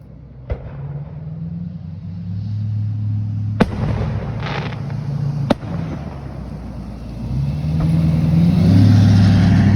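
Fireworks going off as three sharp bangs a few seconds apart, over the steady low hum of a vehicle engine close by that grows louder near the end.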